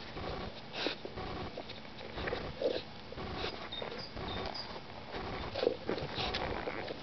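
Belgian Shepherd (Groenendael) puppy sniffing and snuffling at a ball in the grass, with a few louder sniffs about a second in, just before three seconds and near six seconds.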